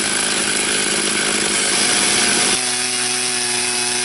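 Stihl chainsaw running at high revs, ripping lengthwise through a cherry log to mill boards. About two and a half seconds in, the noisy cutting sound gives way abruptly to a steadier, evenly pitched engine note.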